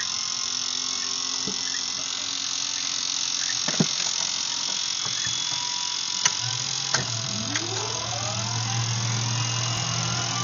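Pilatus PC-6 Turbo Porter turboprop being started: several switch clicks over a steady high hiss, then about six seconds in a low hum comes on and a whine rises steadily in pitch as the turbine spools up.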